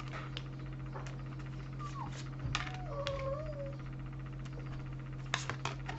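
A domestic cat meowing softly: a short falling mew about two seconds in, then a longer wavering meow. A few light clicks and taps are heard around it.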